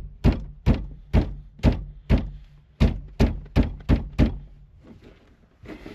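Repeated heavy thunks, about ten in four and a half seconds at roughly two a second, as a 1990 Toyota Space Cruiser steering wheel stuck on its steering column is forced to come off, with the retaining nut left loosely on to catch it.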